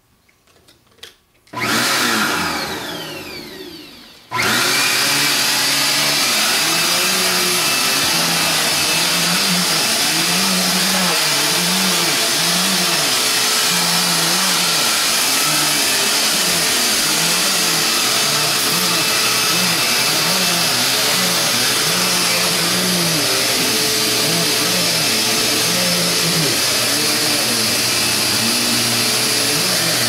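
Upright vacuum cleaner on carpet: it starts about a second and a half in and winds down with a falling whine, then starts again a little after four seconds and runs loud and steady. Its hum rises and falls in pitch about once a second as it works.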